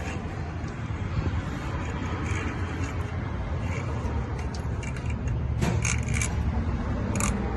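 Light metallic clicks and clinks of small brake parts and hand tools being handled, several in quick succession about two-thirds of the way through, over a steady low rumble.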